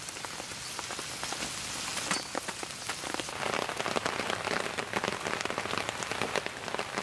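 Rain pattering on surfaces: a dense run of small drop ticks that grows heavier about three seconds in.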